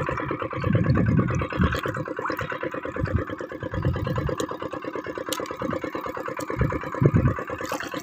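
A diesel engine chugging steadily in the background, with a few low thumps over it.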